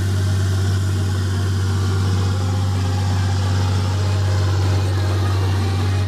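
John Deere tractor's diesel engine running steadily at working revs, a constant deep hum.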